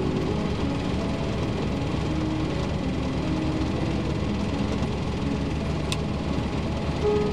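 Rotax four-cylinder engine of a Van's RV-12 running steadily, heard from inside the cockpit as the plane rolls slowly on the runway. There is a single faint click about six seconds in.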